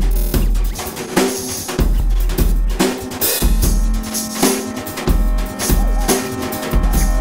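Recorded band music led by drums: a steady beat of bass drum and snare strikes with cymbal crashes, over held pitched instrument tones that grow fuller toward the end.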